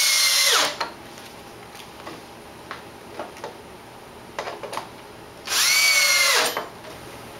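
Cordless drill driving wood screws through a 2x4 rung into a 2x4 pole: two bursts of about a second each, one right at the start and one about five and a half seconds in. Each whine climbs quickly, holds steady and then winds down.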